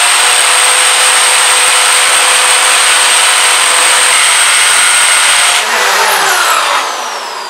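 Corded electric drill running at full speed, boring into a painted wall: a loud, steady noise with a high whine. About five and a half seconds in the sound changes, falling in pitch, and it fades toward the end.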